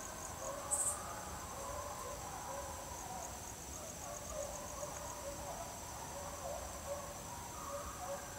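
A pack of hunting hounds baying in the distance while running a trail, with many drawn-out, wavering cries overlapping, over a steady high chorus of crickets and other insects. A brief sharp noise about a second in.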